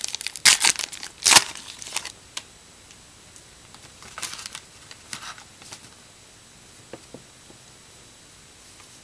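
A baseball card pack's wrapper being torn open: a few sharp rips in the first two seconds, the loudest about a second and a half in. Then softer rustles as the cards inside are handled.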